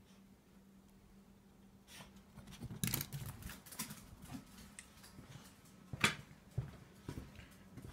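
Soft footsteps and small knocks from someone walking through a doorway onto a tiled floor. The sharpest click comes about six seconds in, over a faint steady low hum.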